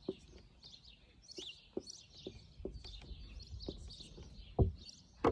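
Birds chirping steadily, with scattered clicks and taps of a marker writing on a whiteboard and one louder thump about four and a half seconds in.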